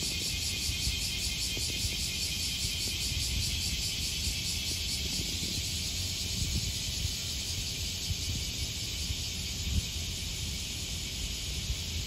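Steady outdoor ambience: a continuous high-pitched hiss with a fine pulsing texture over a low, fluctuating rumble.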